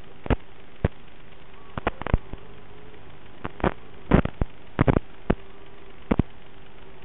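Steady static hiss with a faint hum underneath, broken by many sharp crackles and pops at irregular intervals, most of them in the middle. This is noise on the audio channel of an analog FPV drone video link.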